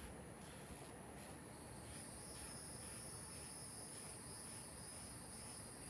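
Faint outdoor insect chorus: a steady high-pitched chirring that grows a little stronger about two seconds in, with a faint, evenly spaced pulsing under it.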